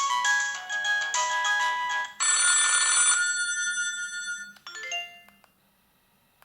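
Panasonic KX-TU250 mobile phone playing a polyphonic ringtone through its loudspeaker. A quick melody ends about two seconds in on a loud held chord with a noisy wash that fades out, then a few short notes sound just before five seconds and it stops.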